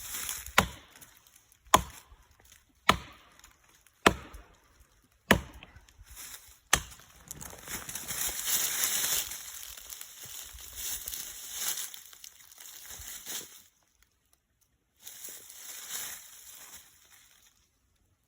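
Axe chopping into a tree trunk: six sharp strikes about a second apart, followed by several seconds of rustling hiss.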